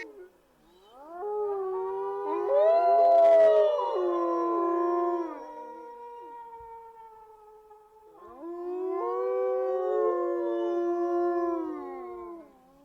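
A pack of canines howling together: several overlapping long howls that rise and fall in pitch, in two rounds, the first starting about a second in and fading away past the middle, the second starting about two-thirds of the way through.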